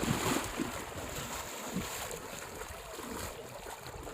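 Water splashing and sloshing, loudest at the start and slowly settling.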